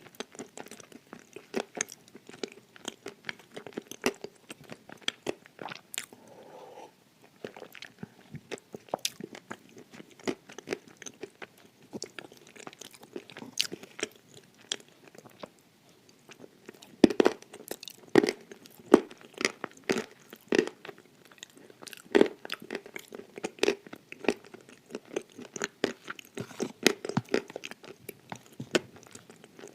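Pieces of dry edible clay being bitten and crunched, chewed close to the microphone: a dense run of sharp crunches that grows louder about halfway through.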